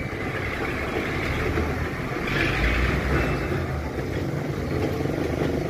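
Heavy vehicle engine running steadily, swelling louder for about a second partway through.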